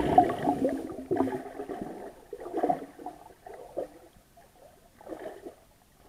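Muffled water sloshing and gurgling around an action camera's underwater case, coming in irregular bursts, busy for the first few seconds, then sparse with one more burst near the end.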